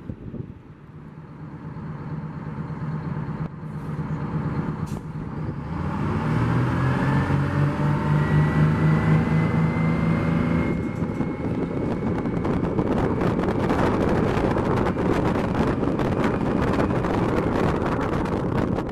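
Diesel transit bus engine running at a low steady hum, then speeding up with rising engine pitch and a thin rising whine as the bus pulls away. After an abrupt cut, a steady rushing road noise of a bus approaching along a street.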